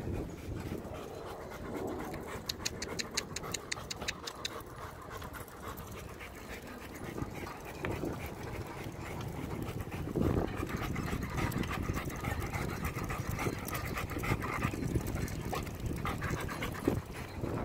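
German Shepherd panting steadily as it runs beside a moving bicycle, over rolling tyre noise. About three seconds in there is a two-second run of rapid ticks.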